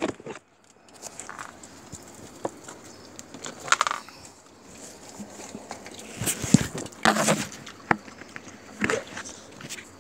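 Plastic bag rustling and crinkling in several short, irregular bursts.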